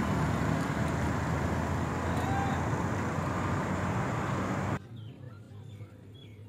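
Steady broad background noise, heaviest in the low range, that cuts off abruptly about three-quarters of the way through, leaving it much quieter with a few faint clicks.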